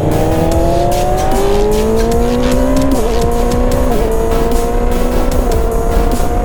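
Yamaha R6's stock-exhaust inline-four engine pulling under way, its pitch climbing steadily and then briefly dipping and recovering three times, over rushing wind.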